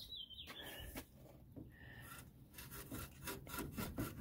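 Faint rubbing and a few light clicks, with no speech: handling noise as a gloved hand and the handheld camera move around the radiator.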